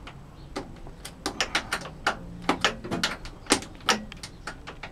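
A hand tool tightening the transformer's mounting screws in an oscilloscope's metal chassis: a run of about a dozen sharp, irregular clicks and small metal knocks.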